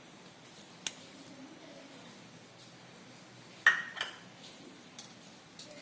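A kitchen utensil clinking and tapping against a mixing bowl as ginger-garlic paste is added to chicken for marinating: a sharp tap about a second in, then one louder ringing clink past halfway and a few light taps.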